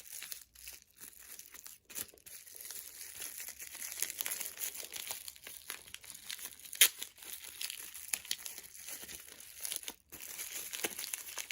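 Packaging being handled and unwrapped by hand: a steady irregular crinkling and tearing, with one sharp crackle about seven seconds in.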